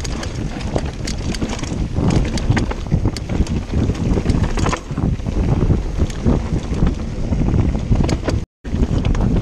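Mountain bike descending a dirt forest trail at speed: wind buffeting the bike-mounted camera's microphone, with tyre rumble and steady clatter and knocks as the bike hits roots and bumps. The sound cuts out for an instant near the end.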